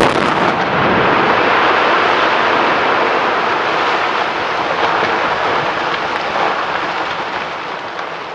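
Quarry bench blast: a last sharp crack of the detonation, then a long roar as the shattered rock face collapses and rubble pours down the bench, slowly fading towards the end.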